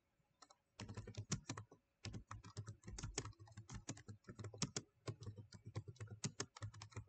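Typing on a computer keyboard: a quick run of key clicks that starts about a second in, with a short pause about two seconds in.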